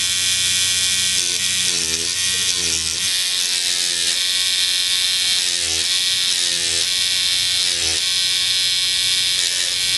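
Inkmachines Stingray X2 rotary tattoo machine running with a steady buzz at 8.5 volts, its gib screw backed out just over three full turns for a softer hit. The pitch wavers now and then.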